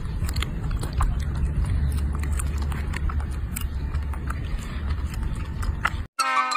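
A steady low rumble with scattered small clicks, cut off abruptly near the end by a whistle-like music tune.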